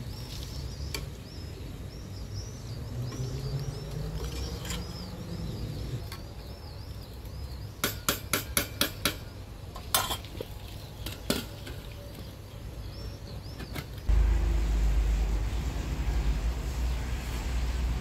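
A metal utensil clinks against a metal cooking pot of rice: about seven quick clinks in a row, then two more single ones. Small birds chirp throughout the first part, and near the end a louder steady low rumble takes over.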